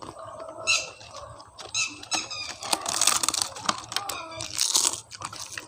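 Close-miked crunching and chewing of crisp food in the mouth, with two loud crunchy bursts in the second half, and a few short high squeaks in the first half.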